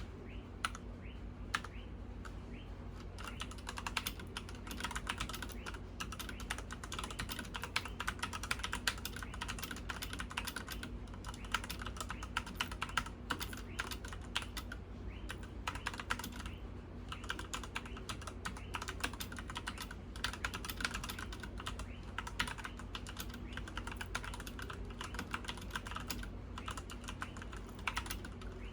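Redragon K551-KR Vara mechanical keyboard being typed on in fast, continuous runs of key clicks with a few short pauses, over a steady low hum.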